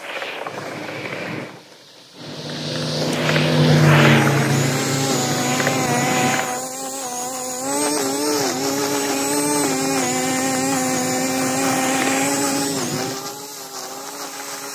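Two-stroke engine of a 25 cc gas string trimmer with an edger attachment, running at high revs while cutting along a curb. Its pitch dips and recovers under the load, after a brief break about two seconds in.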